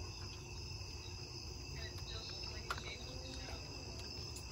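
Steady high-pitched trilling of night insects, over a faint low rumble.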